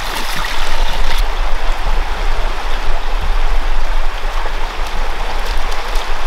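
Creek water running, a loud steady rush with a deep low rumble beneath it.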